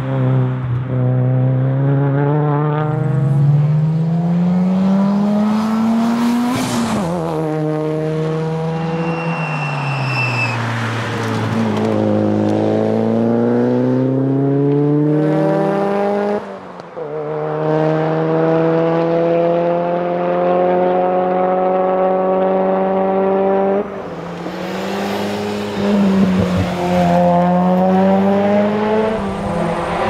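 Mitsubishi Lancer Evolution VIII rally car's turbocharged four-cylinder engine at full throttle, its pitch climbing through each gear and dropping back at every upshift, several times over. A short high squeal sounds about a third of the way in.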